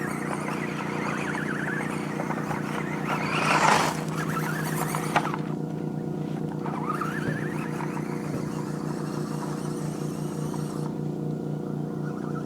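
Electric motor of a toy RC car whining as it speeds up and slows down, with a loud rush just under four seconds in and a sharp click about a second later, over a steady low hum.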